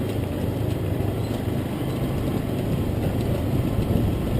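Motorcycle engine running steadily with road and wind noise, heard from on the bike as it paces runners.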